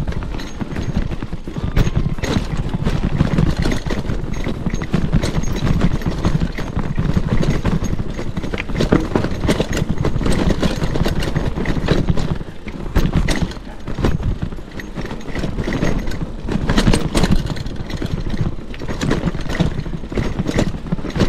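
Mountain bike clattering over a rocky trail: a dense stream of rapid knocks and rattles from the wheels and frame over a steady low rumble.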